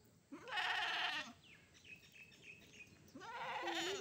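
Goat kid bleating twice. Each call is a wavering bleat about a second long; the second begins about three seconds in.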